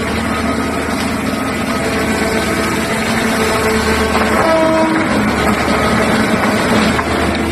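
Liebherr R9800 mining excavator running steadily under a deep engine hum, with whining tones that shift in pitch about four seconds in.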